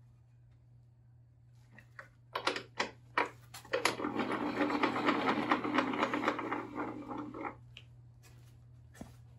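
Table saw blade being cranked up by its height handwheel: a few separate knocks, then a fast mechanical rattle of the elevation gearing for about three and a half seconds as the blade rises. The saw's motor is not running.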